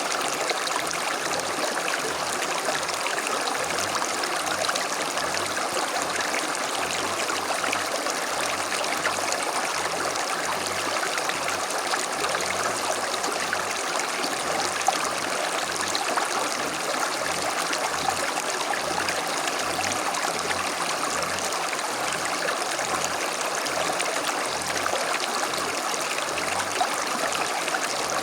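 A small creek flowing over stones, a steady babble and trickle of running water.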